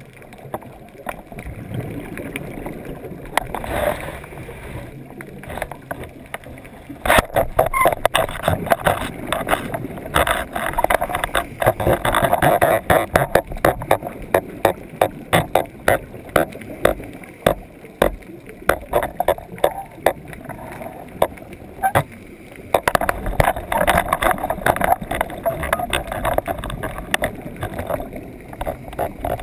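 Underwater sound heard through the snare-mounted GoPro's housing: a scuba diver's regulator exhaust bubbles gurgling in rushes lasting several seconds, with many sharp clicks and knocks throughout.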